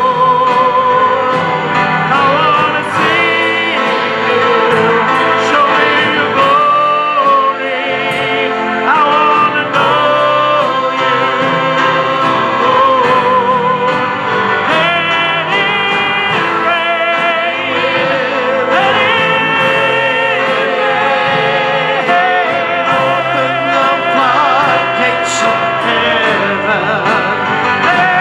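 Live gospel praise singing: a male lead singer on a microphone with a group of backing singers, over keyboard and electric bass, holding long notes with vibrato.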